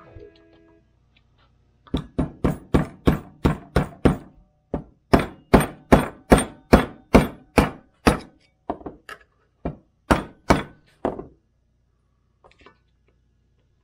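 Rubber mallet tapping on a steel screwdriver against a sawmill's centrifugal clutch assembly while a clutch spring is worked back into place: a steady run of about thirty sharp taps, roughly three a second, with a short pause partway through, ending about two seconds before the end.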